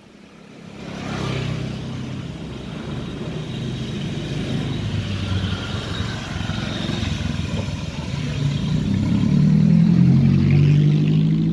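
A motor vehicle's engine runs close by, getting louder over the last few seconds.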